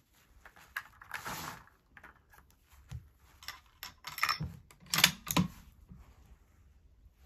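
Metallic clicks, clacks and a brief sliding rattle of a Howa 1500 bolt-action rifle being handled: the bolt worked and cartridges from a plastic ammo box moved. The loudest pair of clacks comes about five seconds in. No shot is fired.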